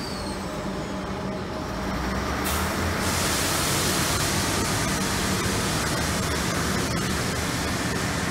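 V/Line Sprinter diesel railcar pulling away along the platform, its diesel engine running with a steady low hum. About two and a half seconds in, a steady hiss comes in over it and the sound grows slightly louder.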